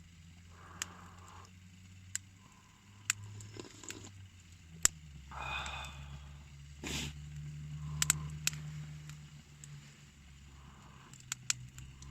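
Wood campfire crackling, with sharp, irregular pops scattered through, over a steady low hum.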